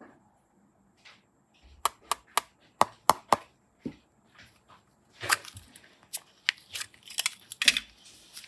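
Slime being worked by hand: a quick run of about six sharp clicking pops, then louder crackly squishing about halfway through and again near the end.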